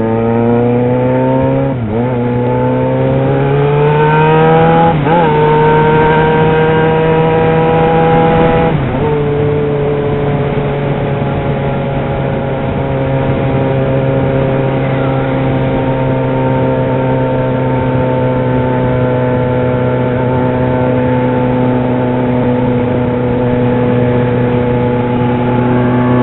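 Yamaha XJ6 motorcycle's inline-four engine accelerating hard, its pitch climbing and dropping at upshifts about 2, 5 and 9 seconds in. It then holds a steady cruise with the pitch easing slightly.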